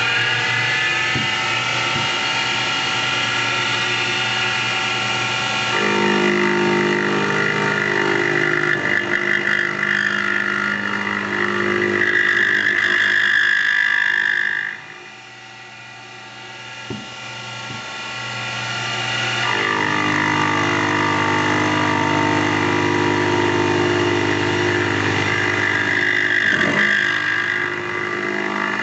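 CNC-converted Grizzly G0602 lathe running a machining program on an aluminium part, its stepper motors and spindle whining in several steady tones. About halfway through the sound drops sharply, then builds back up a few seconds later.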